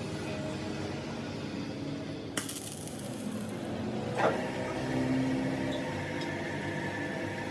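Metal lathe running with a steady hum, a short hiss about two and a half seconds in, and a single sharp metallic clink about four seconds in.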